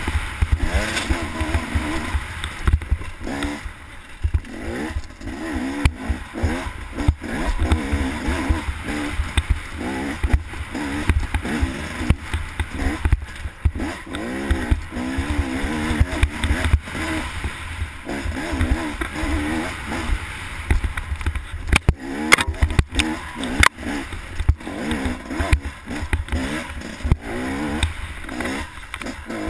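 Enduro motorcycle engine revving up and down continuously, pitch rising and falling as it is ridden over a rough dirt trail, over a low rumble. Sharp knocks from the bumpy ground come in a cluster about three-quarters of the way through.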